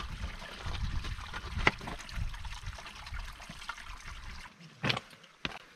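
Meltwater trickling in a thin stream off the edge of a melting snow patch onto rocks, with a low rumble underneath and a few brief ticks; it fades near the end.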